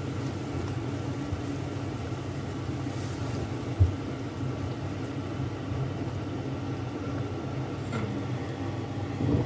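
A steady low hum, with one sharp knock about four seconds in as the plastic spatula strikes the pan of rendang being stirred.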